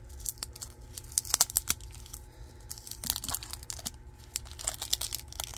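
Clear cellophane wrapper of a 1981 Topps baseball card pack being torn and peeled off by hand, with irregular crackling and crinkling.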